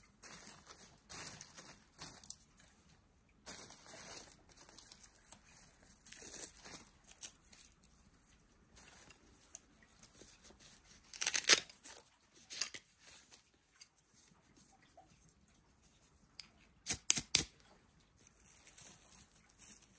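Dry twigs and bark being snapped and torn while kindling is readied for a campfire: irregular crackling and tearing, a louder rip about halfway through and three quick sharp snaps near the end.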